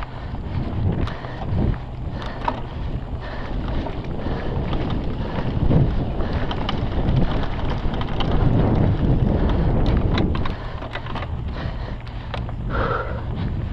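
Mountain bike ridden fast over a dry dirt singletrack: wind buffeting the microphone over the rumble of knobby tyres on dirt, with many short rattles and clicks from the bike. It eases a little about ten and a half seconds in.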